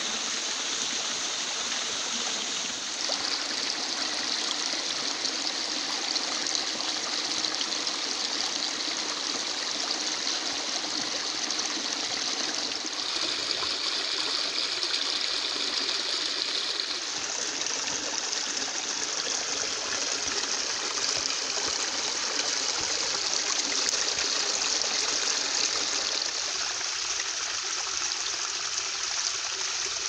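Small stream rushing over rocks and splashing down little cascades into a pool. A steady water noise whose tone shifts abruptly a few times.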